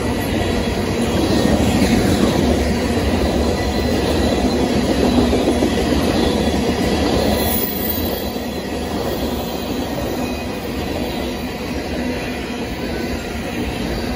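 Freight train of covered hopper cars rolling past: a steady rumble and clatter of steel wheels on the rails, with a faint, thin high whine running over it. The noise eases off a little about eight seconds in.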